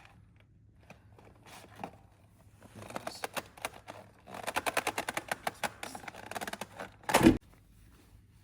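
Handling noise from work on an oil filter: quick runs of clicks and rattles in the middle, then a single loud thump near the end.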